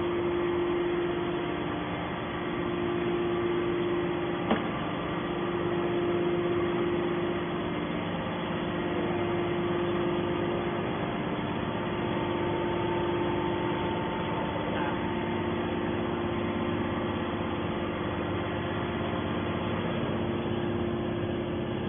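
Horizontal hydraulic scrap-metal baler running: its motor and hydraulic pump give a steady hum with a fixed pitch, and there is one sharp knock about four and a half seconds in.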